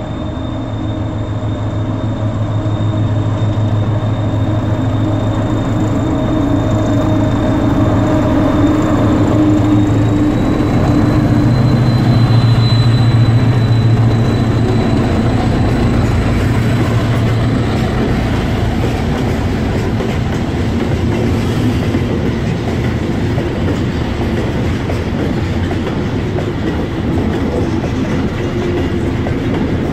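Freight train passing close by: the locomotives' steady hum and rumble grows louder and peaks about halfway through, then a long rake of loaded hopper wagons rolls past with a continuous clattering of wheels over the rail joints.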